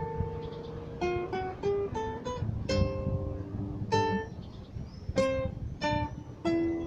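Solo classical guitar played fingerstyle: plucked single notes and chords of a slow march melody, each note ringing and fading before the next.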